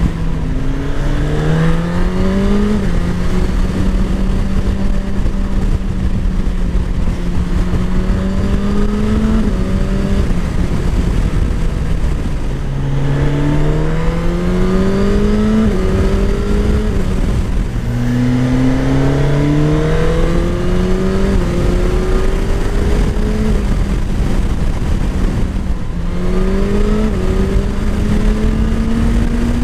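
Suzuki GSX-S1000 GT's 999 cc inline-four running through its stock exhaust, pulling hard several times with the revs climbing in short steps broken by quick upshifts, between stretches of steady cruising.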